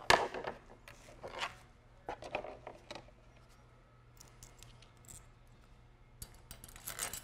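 Small metal clicks and clinks from a T-handle Allen wrench and clamp hardware being handled. They come in scattered bursts: a sharp click right at the start, a few more between one and three seconds in, and a quick cluster near the end.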